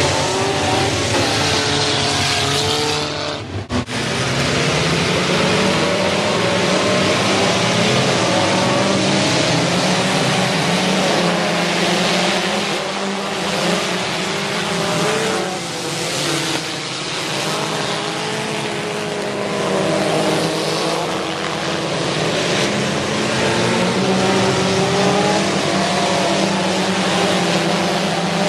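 A pack of compact stock cars racing on a dirt oval track, several engines revving up and easing off together. There is a brief dropout about three and a half seconds in.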